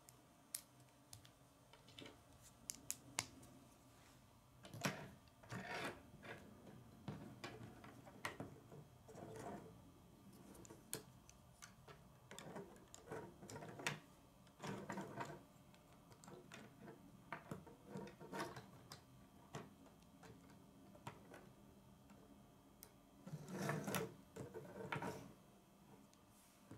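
Plastic K'nex rods and connectors clicking and rattling as they are handled and snapped together, in irregular quiet clicks with a few louder bursts of clattering.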